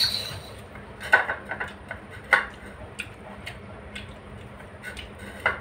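Someone eating by hand from a ceramic plate: scattered short clicks and scrapes of fingers on the plate, with mouth noises of eating, the sharpest about a second in and just past two seconds.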